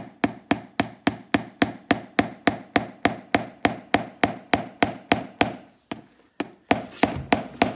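A light hammer rapidly tapping a brass escutcheon pin into a boot heel, about four to five sharp blows a second. The tapping breaks off briefly about five and a half seconds in, then starts again.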